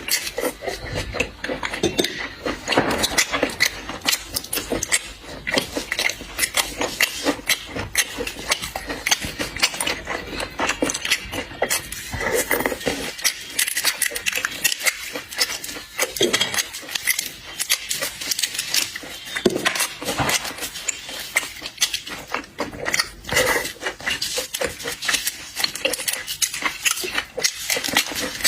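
Close-up eating sounds: continuous chewing and smacking with many small clicks and crackles.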